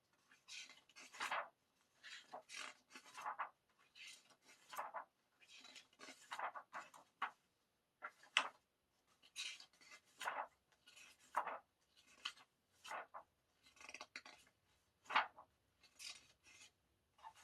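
Paper rustling and sliding in short, irregular strokes as the pages and inserts of a music album's booklet are handled and turned.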